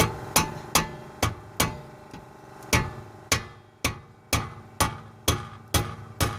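Repeated hammer blows, about two a second, each with a short ring.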